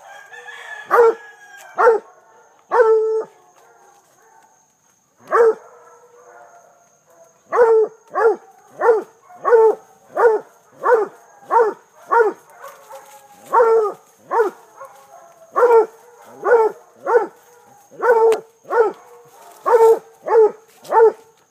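Treeing Walker coonhound baying at a hog: a string of short, loud barks at about one and a half a second. A few barks come near the start, then a lull of a few seconds broken by a single bark.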